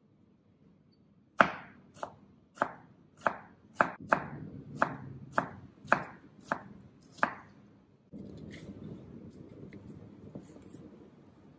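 Chef's knife chopping cucumber on a bamboo cutting board: about eleven sharp, even knocks roughly 0.6 s apart. About eight seconds in, these give way to a softer steady rustle with faint clicks as the knife shreds lettuce.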